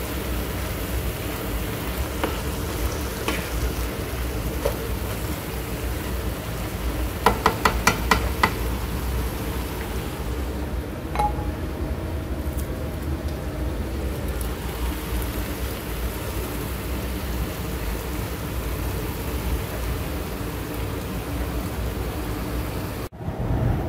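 Mixed vegetables sizzling steadily as they fry in a pan and are stirred. About a third of the way in comes a quick run of about six sharp taps, and a single tap follows a few seconds later.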